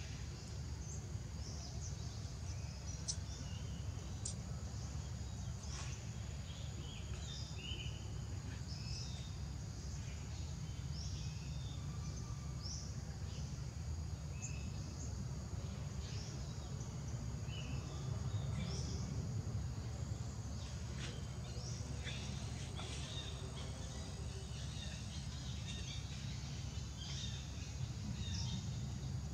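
Forest ambience: many short bird chirps and calls scattered throughout over a steady high insect drone, with a constant low rumble underneath.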